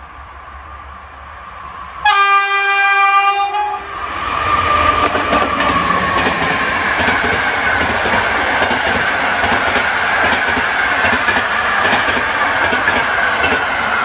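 An approaching locomotive-hauled PKP Intercity passenger train sounds one long, steady horn blast, then rushes past at speed with the wheels clattering rhythmically over the rails.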